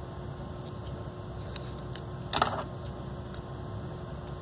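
Steady low room hum with a few faint ticks, and one short rustle of paper being handled a little past halfway through.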